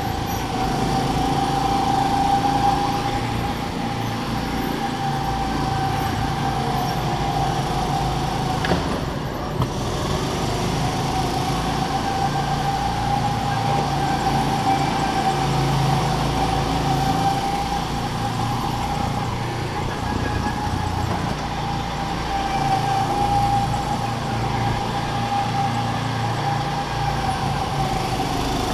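Go-kart running around an indoor track, heard from the driver's seat: a steady whine that wavers slightly in pitch with speed, over a low rumble, with one brief knock about nine seconds in.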